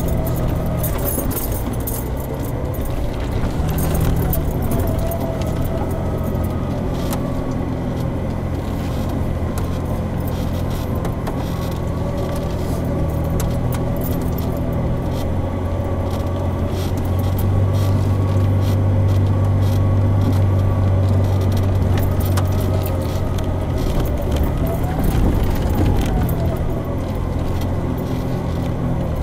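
Jeep Wrangler's engine running at crawling speed over a rough dirt trail, heard from inside the cab, with a steady whine and constant rattling and clicking as it jolts over the ruts. The engine gets louder for a few seconds past the middle.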